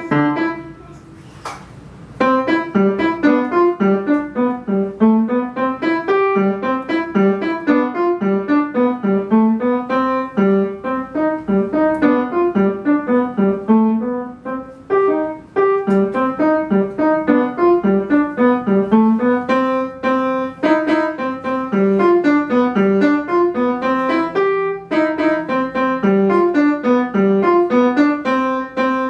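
Yamaha upright piano played in a brisk run of quick, distinct notes in the middle register. After a short pause near the start, the playing goes on steadily, with brief breaks about halfway through and again past two-thirds.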